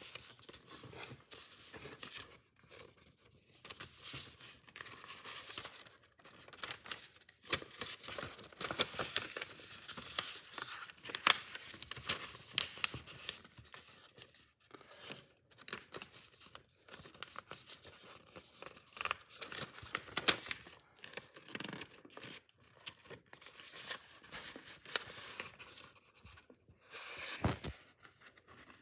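A square sheet of origami paper being handled and folded by hand: irregular crisp rustling and crinkling as it is lifted, flattened and creased, with a few sharp clicks.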